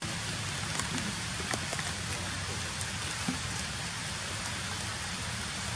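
Steady, even hiss with a few faint, scattered ticks.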